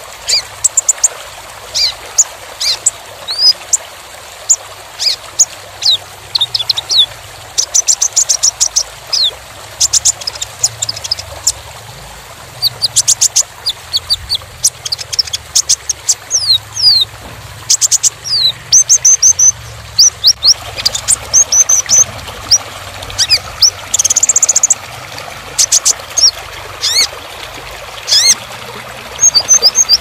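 Male Van Hasselt's sunbird (kolibri ninja) singing: dense runs of high, thin chirps and quick sweeping notes, some in fast rattling strings, broken by short pauses, over a steady background hiss.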